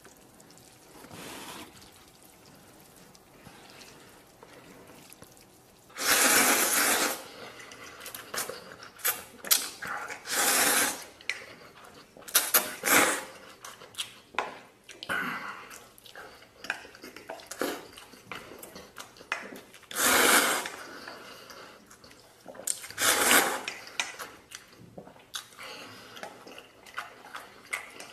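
Instant noodles being slurped in loud bursts of about a second each, several times from about six seconds in, with short clicks of chopsticks against a bowl in between.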